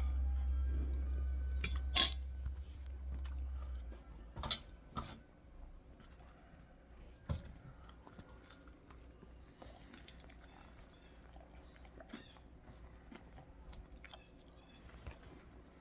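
Eating sounds: cutlery clinking on a dish a few times, sharpest about two seconds in, then quieter chewing and small clicks. A low hum stops about four seconds in.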